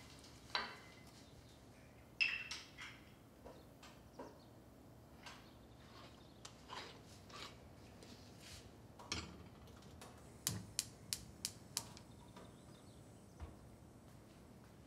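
Kitchen handling sounds: scattered metal clinks and knocks as a stovetop moka pot is put together, then a quick run of sharp clicks from a gas hob's igniter as the burner is lit.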